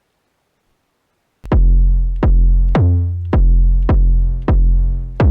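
Near silence, then about a second and a half in, an ANA 2 software synthesizer preset starts playing a repeating pattern of deep 808-style bass notes, roughly two a second. Each note has a sharp click at its start.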